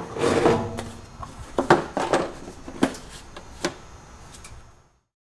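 Black plastic battery-box lid being lifted off and handled: a run of irregular knocks and clunks, about eight over four seconds, cutting off abruptly near the end.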